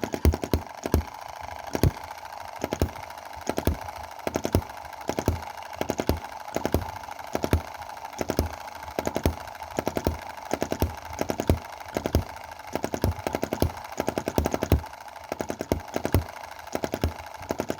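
Small single-cylinder EM2 hit-and-miss model gasoline engine running, its firing coming in irregular clusters of sharp bangs with short gaps between, over a steady background hum. The carburettor mixture is being moved from very rich toward lean, and the engine misfires.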